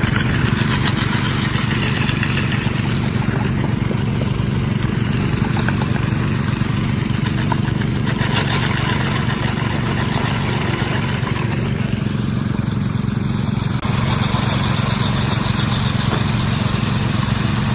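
An engine running steadily at a constant speed, with an even low pulse and no change in pitch.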